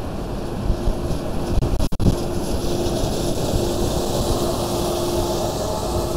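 Car driving at road speed: steady tyre and wind noise with an even hum. The sound cuts out briefly twice about two seconds in.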